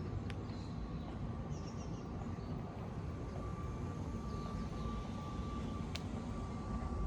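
Outdoor street ambience: a steady low rumble of traffic, with a few faint high chirps and a couple of small clicks.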